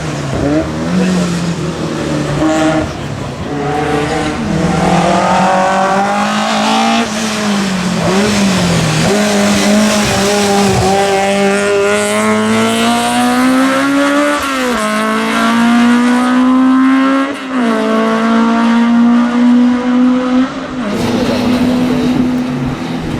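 Touring car racing engine pulling hard up a hillclimb course, its pitch climbing steadily through each gear and dropping sharply at upshifts about 15 and 17 seconds in.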